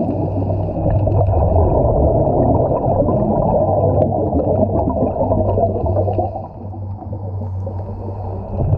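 Underwater ambience picked up by a GoPro in its housing: a dense, muffled rush of water with a steady low hum underneath. It drops quieter about two-thirds of the way through and swells again near the end.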